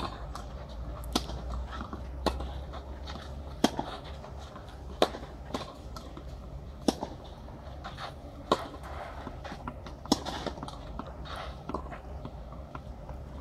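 Tennis ball hit back and forth with rackets on a clay court: sharp pops of the strings striking the ball about every one to one and a half seconds, with softer bounces in between, over a steady low outdoor rumble.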